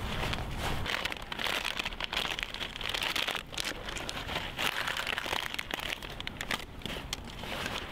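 Rustling and crinkling of a fabric backpack being rummaged through by gloved hands, with many small irregular clicks and scrapes. A low rumble underneath stops about a second in.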